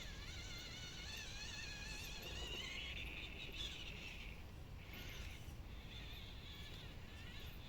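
Gmade R1 RC crawler's electric motor and gearbox whining as it drives, the pitch wavering up and down with the throttle, and rising into a harsher buzz for a couple of seconds around the middle.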